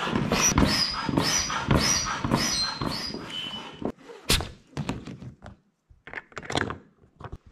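A foot pump inflating an inflatable raft, pumped in steady strokes about twice a second with a high squeak on each stroke. About four seconds in the pumping stops and a sharp click follows, then small clicks as the pump hose is pulled off the valve and the valve cap is closed.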